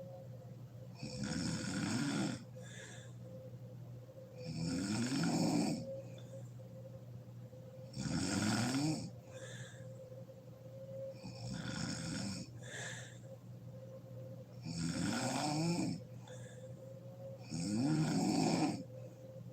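A sleeping woman snoring in a steady rhythm: six snores about three and a half seconds apart, each about a second long and rising in pitch, with a softer breath between them. A faint steady hum runs underneath.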